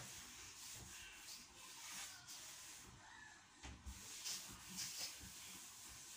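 Faint soft rubbing strokes of a cloth wiping the top of a wardrobe, with a few light knocks, in an otherwise quiet room.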